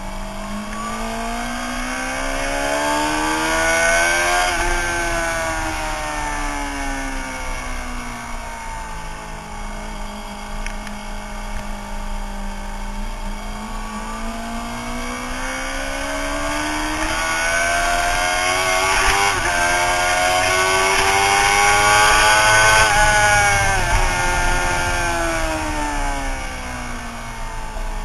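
A Suzuki sportbike's engine, heard from on board at speed, pulling up in pitch over the first few seconds and then easing off slowly. It winds up again for several seconds, with a brief dip part-way through, before falling away as the throttle is rolled off near the end.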